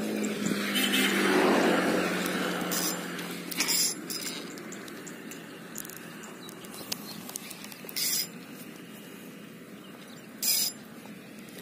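Spinning reel being worked by hand, its gears whirring as line is wound, with several short bursts of high clicking from the reel. A low hum swells and fades over the first few seconds.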